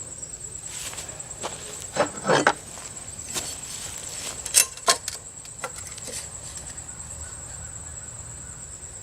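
Steady high-pitched insect chirring, like crickets, with a few sharp clicks and knocks from handling wood and tools. The knocks are loudest about two seconds in and again just before five seconds.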